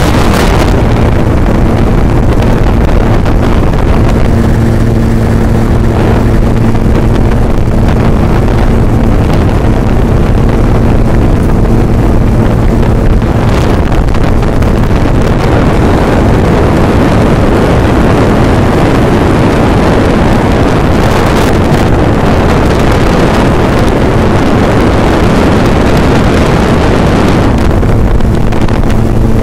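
Motor scooter engine running loudly and steadily while riding, with wind rushing over the microphone.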